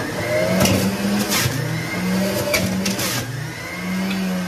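Electric centrifugal juicer running, its motor humming steadily as apple pieces are pushed down the feed chute. Several loud crunching bursts in the first three seconds as the apples are shredded on the spinning cutter disc.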